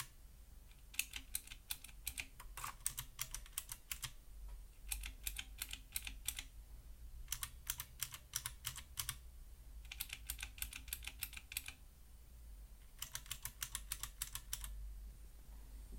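Typing on a mechanical keyboard: six quick bursts of key clicks with short pauses between them.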